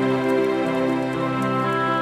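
Calm, new-age-style instrumental background music of slow, sustained chords.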